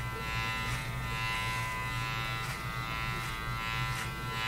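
Electric hair clippers running with a steady buzz as they cut through the hair on the crown.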